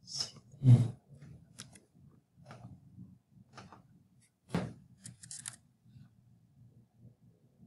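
Scattered clicks of a computer mouse and keyboard keys, about a dozen over the first six seconds, the loudest just before the first second and about halfway through, over a faint low hum.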